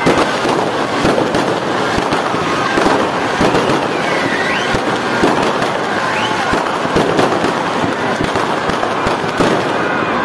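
Fireworks display: a dense, continuous barrage of bangs and crackling pops from aerial shells and crackle effects, with a couple of short whistles about four and six seconds in. It cuts off suddenly at the end.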